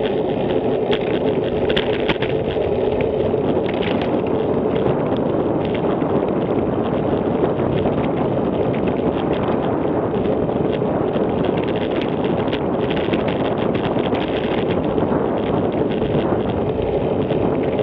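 Wind rushing steadily over the microphone of a camera on a moving bicycle, with frequent small ticks and rattles from the bike running over the road.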